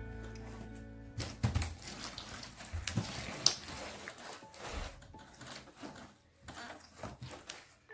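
Slime being squeezed and poked, giving a run of irregular sticky pops and crackles that thin out toward the end. A few fading musical tones trail off in the first second.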